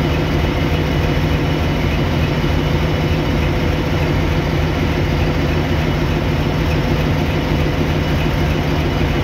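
M4-class diesel locomotive engine running steadily with an even low hum.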